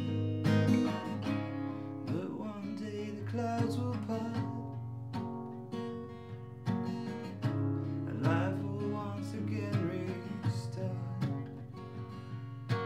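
Acoustic guitar played solo, chords strummed and picked and left ringing.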